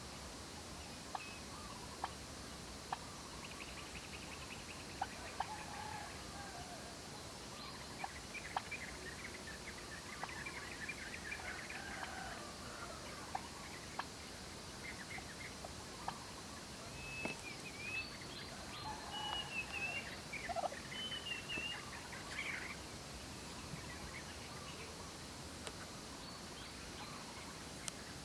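Domestic turkeys calling as they forage, short high calls coming in two busy spells, the louder one past the middle. Short sharp clicks come now and then.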